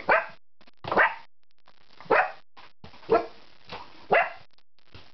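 A dog barking five times, about one bark a second.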